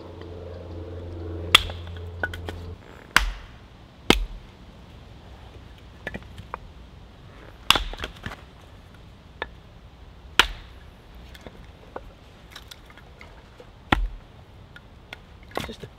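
A hatchet splits kindling on a wooden chopping block. There are about six sharp chops at uneven intervals, a few seconds apart, with lighter knocks between them. A low steady hum runs under the first three seconds and stops suddenly.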